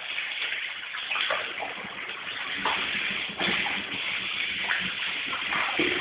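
Water from a shower running and splashing into a shower tray, with a dog moving about in the stream and a few light knocks.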